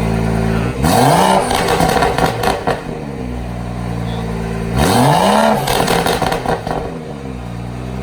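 BMW turbocharged inline-six idling through a freshly fitted aftermarket exhaust, revved twice in quick blips about four seconds apart, with crackles and pops from the exhaust as the revs fall back to idle.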